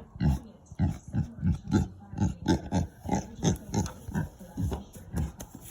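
Pig grunting over and over, short low grunts about three a second.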